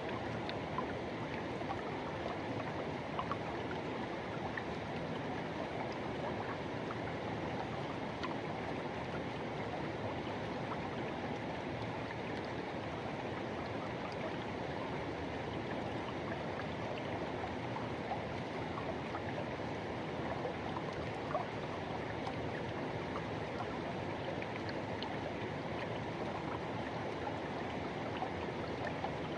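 Rushing river water flowing steadily over rocks, a constant even rush with faint splashes and gurgles.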